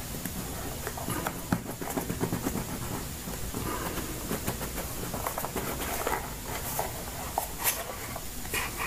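Hands handling and opening a small cardboard product box: scattered scrapes, rubs and light taps of fingers and card against card as the lid is worked off.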